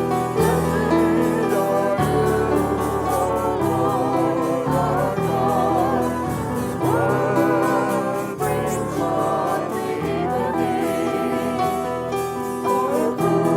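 Worship music: voices singing a melody with vibrato over keyboard accompaniment.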